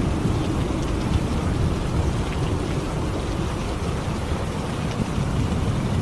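Steady heavy rain with a deep low rumble under it, as in a thunderstorm, and faint drop ticks on top.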